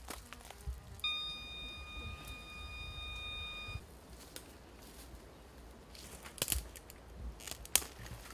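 Footsteps crunching and cracking on dry leaf litter and twigs on a forest floor, with a few sharp snaps about six to eight seconds in. About a second in, a steady high whistle-like tone starts and holds for nearly three seconds.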